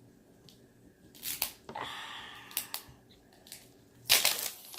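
Wrapping of an LOL Surprise ball being crinkled and torn by hand: a few short crackles about a second in, a longer rustle around two seconds, then a loud burst of crackling near the end.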